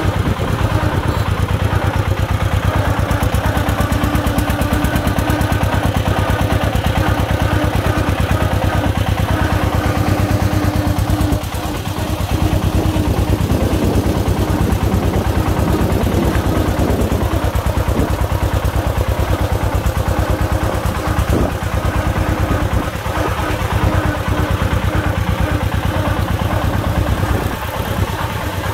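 Công nông farm truck's single-cylinder diesel engine chugging steadily while hauling a load of sand: a loud, rapid, even run of firing pulses.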